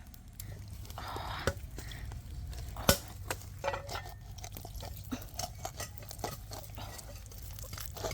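Irregular light clicks and knocks of things being handled, the sharpest knock about three seconds in, over a low steady rumble.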